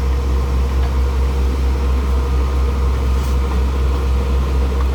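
Borehole drilling rig's engine running steadily, a deep, even hum.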